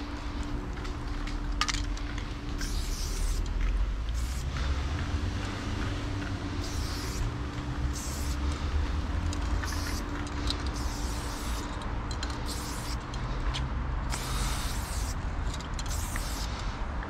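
Loop Colors aerosol spray paint can hissing in repeated short bursts, each a second or less, as lines are sprayed onto a stone wall, over a steady low rumble.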